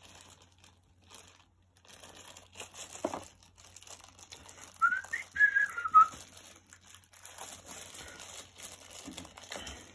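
Thin plastic bag crinkling and rustling as it is handled and packed, with a light knock about three seconds in. About five seconds in comes a short whistle of a few notes that rises, then falls.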